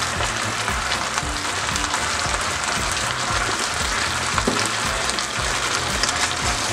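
Pork ribs in barbecue sauce sizzling in a hot pan, a steady hiss with light crackle.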